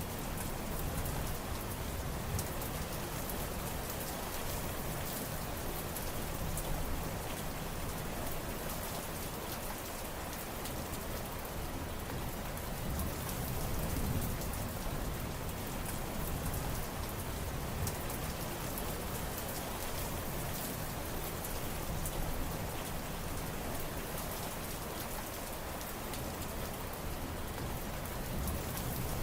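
Steady rain falling, with the ticks of single drops hitting surfaces over an even hiss, and a low rumble underneath that swells and fades now and then.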